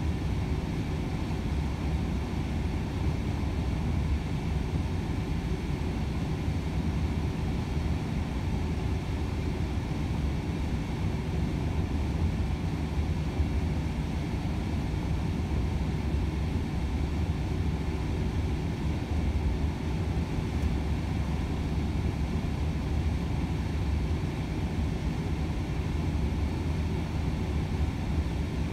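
Volvo FH 500 truck heard from inside the cab at steady motorway cruising speed: a constant low diesel engine drone mixed with tyre and road rumble. It holds steady with no gear changes or revving.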